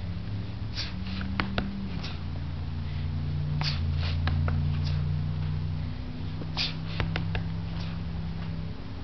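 Short, sharp exhalations and a few knocks as a martial artist kicks and strikes a wooden training post, over a steady low drone that shifts in pitch a few times.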